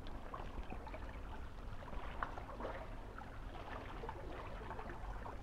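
Small sea waves lapping and splashing irregularly at the water's edge, over a steady low rumble.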